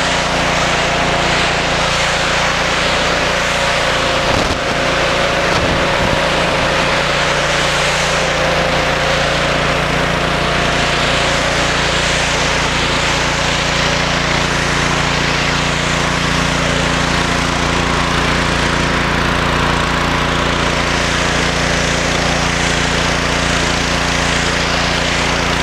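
3000 psi pressure washer's engine running steadily under load, with the constant hiss of its high-pressure water spray rinsing dirt off concrete.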